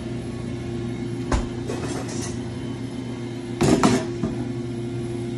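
Kitchen clatter of containers or utensils being handled: a sharp knock about a second in, light scraping, then a louder clatter near the end, over a steady mechanical hum.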